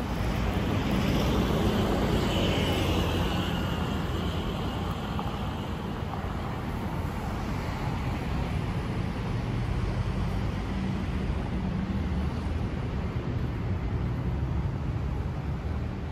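Street ambience of steady road traffic hum, a little louder in the first few seconds as a vehicle goes by.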